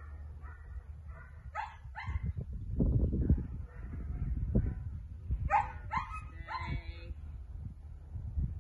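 Dog barking and yipping: two short rising yips about one and a half seconds in, then several more in quick succession from about five and a half to seven seconds in. Wind rumbles on the microphone in between.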